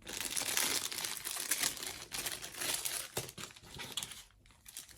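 Plastic packaging of a model-kit parts set crinkling and rustling as it is handled, for about four seconds, then dying down near the end.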